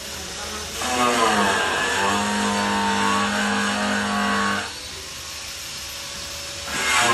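A motor runs for about four seconds: its pitch falls at first, then settles into a steady hum. It stops, and a similar motor sound starts again near the end.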